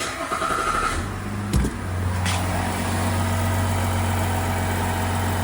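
Chevrolet 3.0 L LM2 Duramax inline-six diesel starting up on a freshly primed fuel system: a brief crank, catching about a second in with a low thump, then settling into a steady idle.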